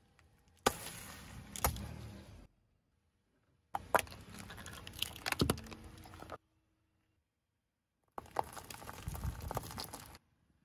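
A car tyre rolling over and crushing small objects on asphalt: three separate bursts of cracking and crackling, each about two seconds long, starting and stopping abruptly with silence between.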